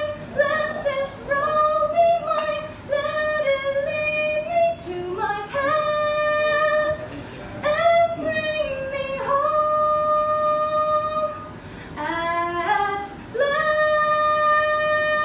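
A woman singing opera unaccompanied in a high voice. Short phrases move around one pitch, then she holds long notes, the last one starting near the end.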